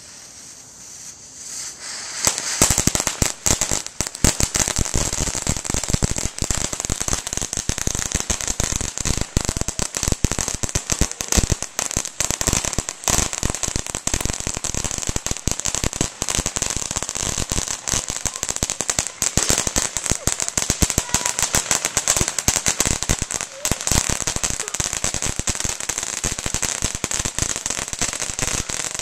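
Ground fountain firework erupting about two seconds in after its fuse burns, then spraying sparks with a dense, continuous crackling of rapid irregular pops.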